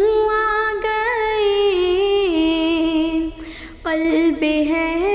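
A woman singing an Urdu naat unaccompanied, holding long drawn-out notes that bend and step in pitch, with a short breath pause about three and a half seconds in.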